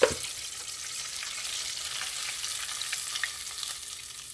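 Battered chicken wings deep-frying in hot oil in a pot, a steady crackling sizzle. A single sharp knock comes right at the start.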